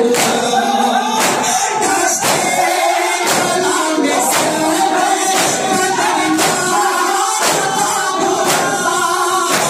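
A noha (Shia lament) chanted by a male reciter and a crowd of men together, with the sharp slaps of matam, hands striking chests, in a steady beat under the chant.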